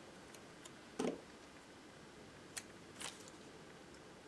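Quiet handling of a sticker and metal tweezers over a planner page: a soft tap about a second in, then a sharp click and a smaller click a little later.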